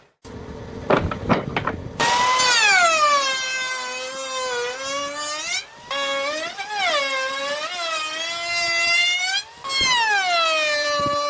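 A few sharp knocks, then a loud electric power tool motor whining from about two seconds in. Its pitch sags and wavers as it works the wood, and it cuts off abruptly twice.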